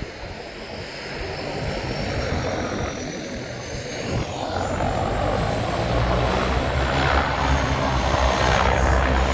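Propeller aircraft engine running and growing steadily louder as it approaches, with a high whine that slowly rises in pitch over a low steady drone.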